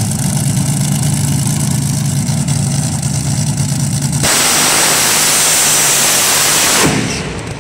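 Nitro-burning drag car's engine running at the starting line with a steady low beat. About four seconds in, it goes to full throttle on the launch: a sudden, very loud, harsh blast that lasts a couple of seconds and then falls away as the car goes down the track.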